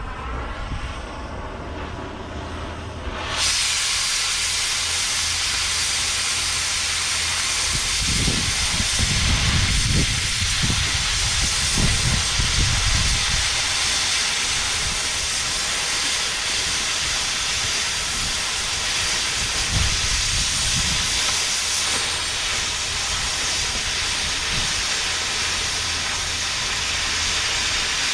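Oxy-fuel cutting torch cutting steel plate: a loud, steady hiss that jumps up suddenly about three seconds in as the cutting oxygen comes on and the cut begins, then holds.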